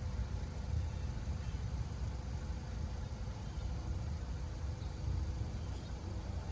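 Steady low outdoor rumble with no distinct event, the background noise of an open-air setting.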